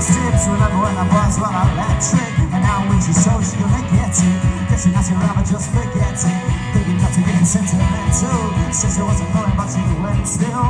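Live rock band playing a song: a drum kit keeping a steady, driving beat under electric guitar and bass.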